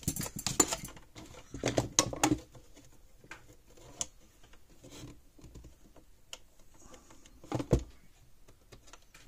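Clicks and clatter of hand tools and a plastic fence charger being handled on a wooden workbench, in short bursts: one at the start, another about two seconds in, and a last one near the end.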